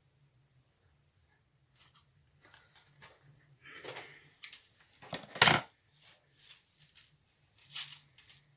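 Handling noises: scattered rustles and clicks as a wig and its packaging are moved about, with one louder rustle about five and a half seconds in.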